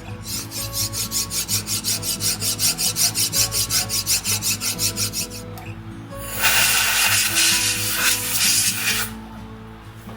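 Mini lathe cutting metal over a steady motor hum: a rhythmic scraping about six times a second, then a louder, continuous hissing cut for about three seconds.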